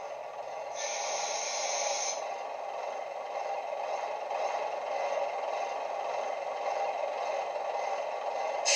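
Model Class 128 parcels unit's DCC sound decoder playing a first-generation DMU diesel engine sound through a pair of small megabass speakers, running steadily. A burst of air hiss comes about a second in and lasts a little over a second. Another, louder hiss starts suddenly near the end.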